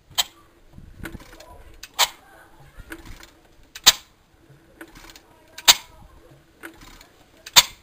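A 1917 Amanco Hired Man stationary engine being turned over by hand on its flywheel without firing. Sharp clicks come about every two seconds with fainter clicks halfway between, as the engine comes up against plenty of compression.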